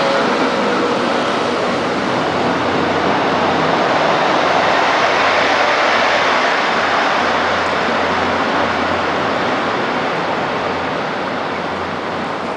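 Korail Saemaeul-class passenger train passing close by at speed: a steady rush of wheels on rail over a low hum. It is loudest about halfway through as the rear power car goes by, then eases off as the train clears.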